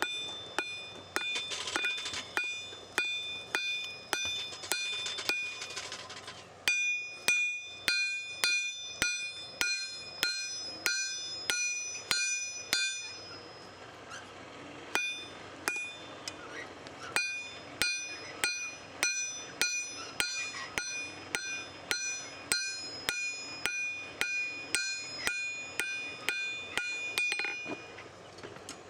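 Hand hammer blows forging a steel knife blank on an anvil, about two strikes a second, each leaving a bright metallic ring, with a short pause about halfway through.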